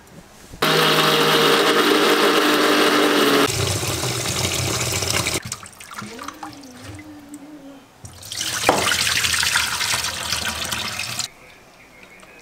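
Tap water running into a steel bowl in a stainless-steel sink, in two spells: from about half a second in to about five seconds, and again from about eight and a half to eleven seconds. Between them come quieter splashes of hands washing raw chicken pieces in the bowl.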